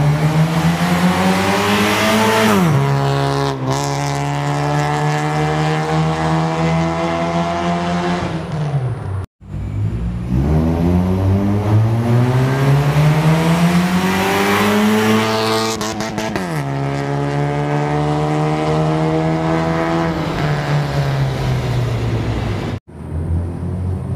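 Honda Stream RSZ with a custom stainless-steel downpipe and full stainless exhaust, accelerating hard. The engine note climbs, drops sharply at an upshift, then holds and slowly rises and falls. This happens twice, and each run cuts off abruptly.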